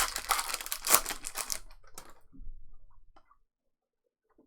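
Foil card pack wrapper crinkling and trading cards being handled: a dense crackle for about a second and a half, then a few light clicks.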